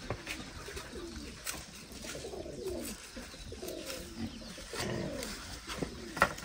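A dove cooing repeatedly in short phrases that fall in pitch, with a single sharp knock near the end.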